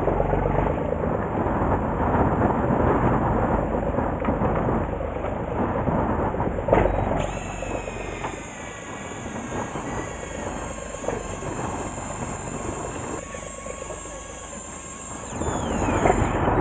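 Wind buffeting the microphone over the steady running noise of a boat at sea. From about seven seconds in, a steady high whine lasts some eight seconds and slides down in pitch as it stops, while a fish is being reeled in on a bent rod.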